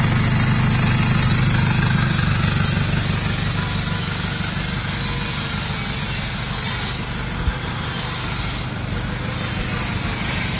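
Nissan Navara's engine idling steadily through a straight full exhaust with no resonator, exiting from a short side-exit tip. One brief tap sounds about seven and a half seconds in.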